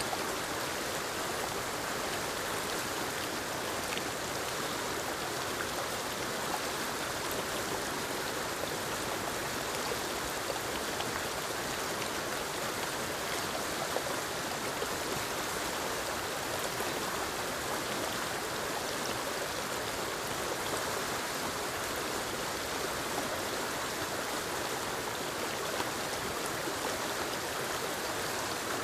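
Small forest waterfall splashing over rocks into a stream: a steady, even rush of water.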